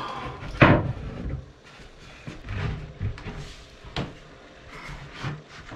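A wooden cabin floor panel being lifted: a loud knock and scrape about half a second in, then lighter wooden knocks and shuffling, with a sharp click about four seconds in.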